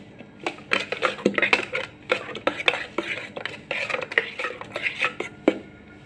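Metal spoon stirring thick chutney in a stainless steel vessel, clinking and scraping against the sides in quick, irregular strokes that stop about half a second before the end.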